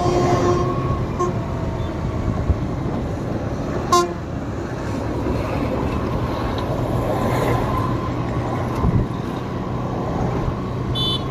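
Steady road and engine noise of a vehicle driving on a highway, with a vehicle horn honking during the first second or so and a sharp click about four seconds in.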